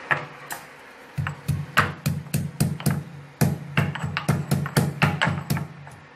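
Peeled ginger and cardamom pods being pounded with a pestle: a couple of lighter knocks, then a steady run of sharp thuds about four times a second for several seconds.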